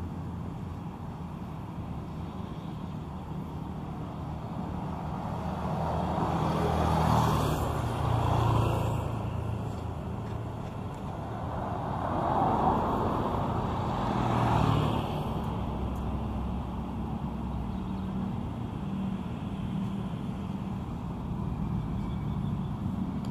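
Street traffic: a steady hum of engines with vehicles passing close by, swelling and fading twice, about seven to nine seconds in and again about twelve to fifteen seconds in.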